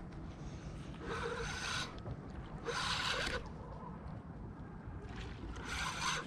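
Spinning reel being cranked in three short spells of about a second each, winding in line. Underneath is a steady low rumble.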